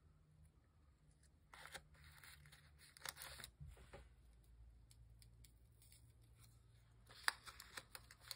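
Faint rustling of stiff paper circles, tracing paper and deli paper, being picked up, shuffled and stacked by hand, in a few brief rustles about a second and a half in, around three seconds and again near the end.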